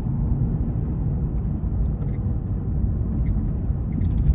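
Cabin sound of a BMW 535i with its N55 turbocharged straight-six on the move: a steady low rumble of engine and road noise, a little louder near the end.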